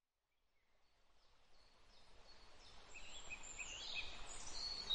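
Outdoor nature ambience fading in from silence, with birds chirping: a run of short chirps and a few thin high whistles in the last two seconds.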